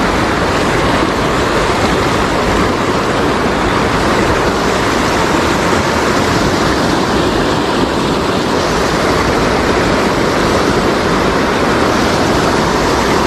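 River water rushing and splashing over a low concrete weir and between rocks: a steady, unbroken rush.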